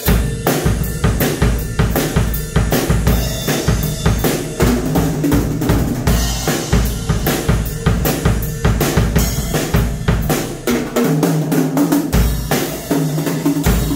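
Ludwig acoustic drum kit played in a steady rock groove: kick drum, snare and crashing cymbals struck in a dense, even rhythm.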